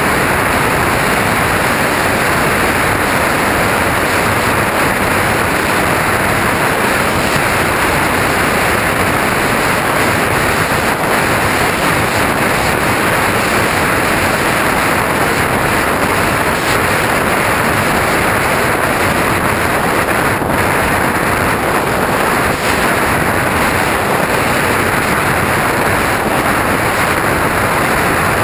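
Steady, loud rushing of airflow over an onboard camera carried by a flying RC plane, an even noise with no distinct events or changes.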